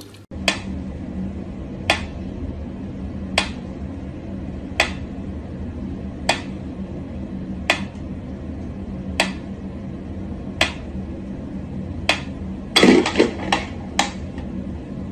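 Sharp taps or knocks, evenly spaced about every second and a half, over a steady low hum, with a quick cluster of louder knocks about thirteen seconds in.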